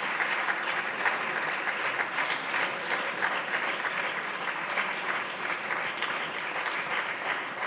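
Applause from a large group of people in a parliamentary chamber, many hands clapping steadily.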